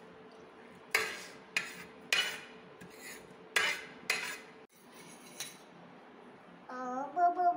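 A metal spoon clinking against a ceramic plate and bowl while a dry coating is spooned out: five sharp taps with brief ringing in the first four seconds. Near the end a child's voice starts.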